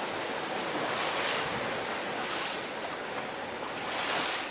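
Sea water washing and wind rushing on a small boat at sea, a steady hiss that swells three times.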